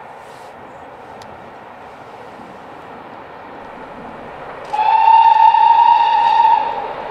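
GWR Castle Class 4-6-0 steam locomotive approaching under steam, its running noise slowly growing louder; about two thirds of the way in it sounds its steam whistle, one loud, steady blast of about two seconds.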